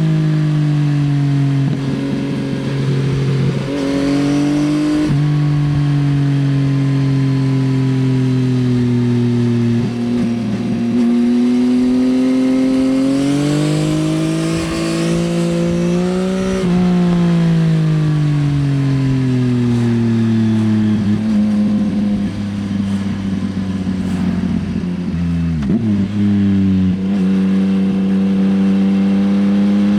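Yamaha XSR900's inline-three engine through an Akrapovič Racing Line exhaust while riding: it revs up and down, its pitch climbing and falling with sudden drops at gear changes. Crackling comes from the exhaust at times when the revs fall.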